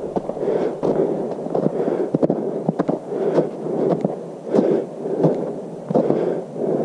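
Footsteps crunching and squelching through wet, packed snow and mud on a forest trail at a steady walking pace, about one step every 0.7 seconds, with sharp crackles of snow crust breaking underfoot.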